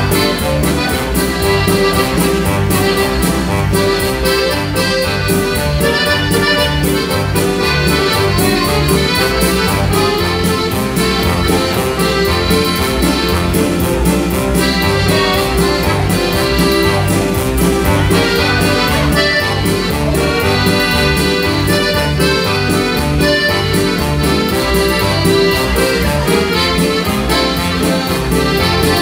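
Accordion playing a lively instrumental tune over a steady backing beat of bass and percussion.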